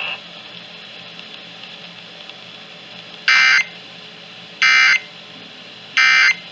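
Emergency Alert System end-of-message data tones: three short, identical bursts of digital tones about a second apart, starting about three seconds in. They signal the end of the alert.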